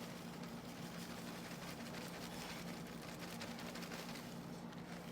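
A steady low hum, with faint soft rustling as cracker crumbs are tipped into a mixing bowl.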